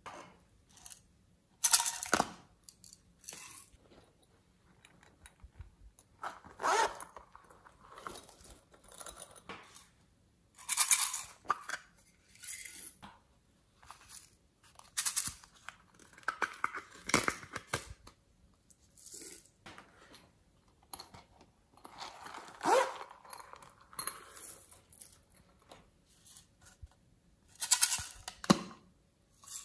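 Hands handling small plastic clay containers: irregular clicks, taps and crinkly rustles of plastic coming in short bursts with quiet gaps between.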